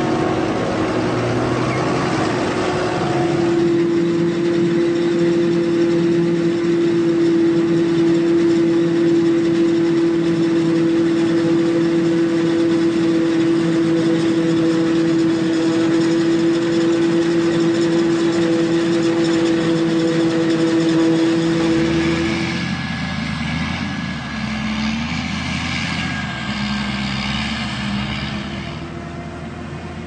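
Engine of heavy farm machinery running steadily, with a strong steady whine over its hum. About 22 seconds in the whine stops and a deeper hum takes over, and the sound gets quieter near the end.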